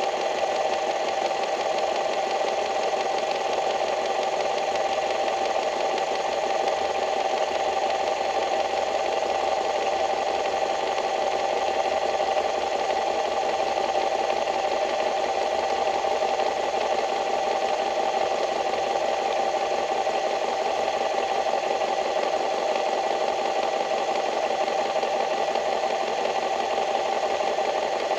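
A small engine running steadily at constant speed, a continuous mechanical drone with one strong steady hum.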